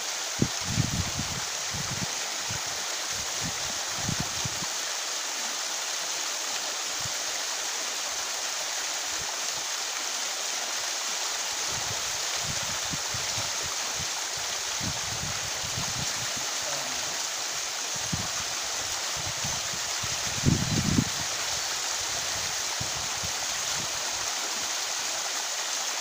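Small waterfall cascading over rock: a steady rush of falling water, with a few low bumps that are loudest about a second in and again about twenty seconds in.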